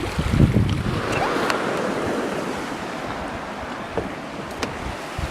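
Ocean surf washing steadily on the shore, with wind buffeting the microphone in roughly the first second and a few faint clicks.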